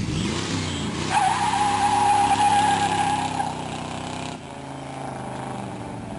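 1968 Oldsmobile Cutlass pulling away hard: the engine revs up, then the tyres squeal loudly for about two and a half seconds. After that the engine runs on more quietly as the car drives off.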